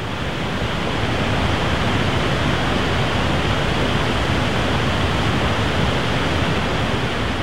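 White-water river rapids: a steady, even rush of churning water that swells slightly in the first second and then holds level.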